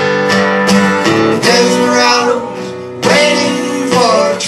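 Acoustic guitar strummed in a country-folk rhythm between sung lines, the chords dipping in loudness before a strong strum about three seconds in.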